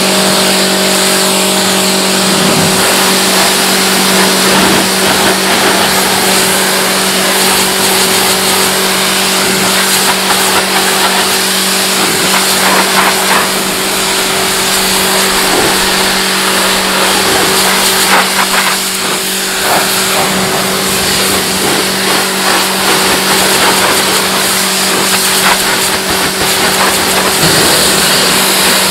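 High-pressure washer spraying water onto a mud-caked car body: a steady hiss of spray over the constant hum of the washer's motor and pump.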